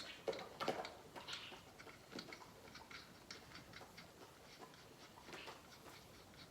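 Faint, irregular light clicks and taps, a few a second, with a couple of sharper knocks about half a second in.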